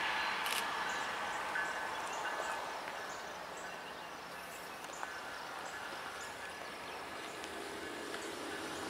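Distant freight train rolling across a bridge behind its diesel locomotives, the cars going by: a steady noise of wheels and engines with faint thin tones, slowly fading as the locomotives move away.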